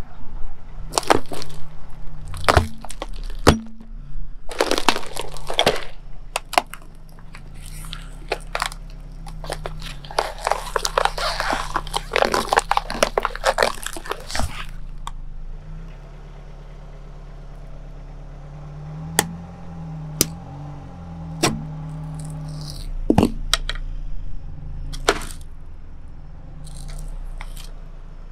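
Car tyre rolling slowly over objects and crushing them one after another: long runs of crackling and crunching cardboard and plastic in the first half, then a few sharp single cracks. Under it all runs the car's engine at a low steady idle.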